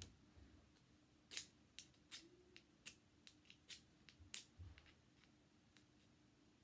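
Ferro rod (flint and steel) being scraped with its small striker: about ten short, faint, high scraping strokes at irregular intervals. The strikes are not throwing sparks.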